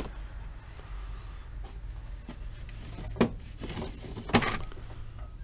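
Two short knocks about a second apart, from objects being handled and set against a wooden shelf and plastic tool case, over a steady low hum.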